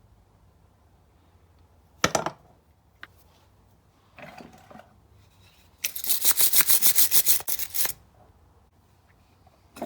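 Hand work on motorcycle brake parts: a sharp knock of metal parts about two seconds in, a small click, then about two seconds of quick back-and-forth scraping strokes, roughly six a second.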